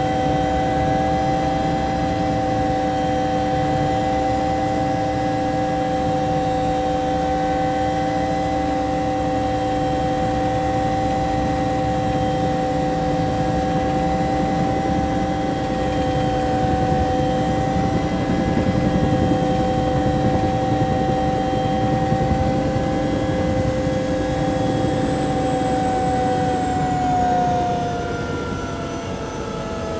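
Bell 212 twin-turbine helicopter heard from inside the cabin, running steadily: a low rotor and engine rumble under a high turbine whine and several steady tones. Near the end the whine and tones slide down in pitch and the sound gets a little quieter, as the engines are throttled back toward idle.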